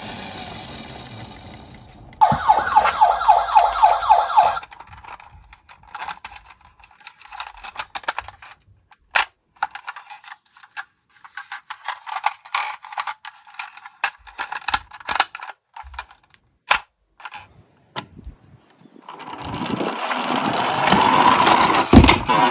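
Toy ambulance minicars on a slope: a short wavering ambulance siren about two seconds in, then many sharp clicks and knocks of the little cars on the track, and a rolling rumble that builds over the last few seconds.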